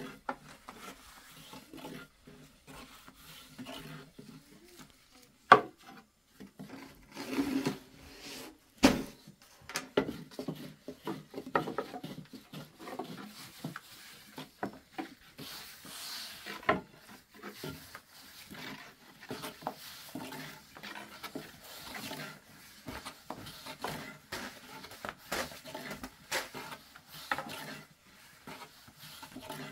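Thin wooden rolling pins rolling out flatbread dough on round wooden boards: repeated rubbing and rolling strokes with many light wooden clicks. A few sharper knocks of pin against board stand out, the loudest in the first third.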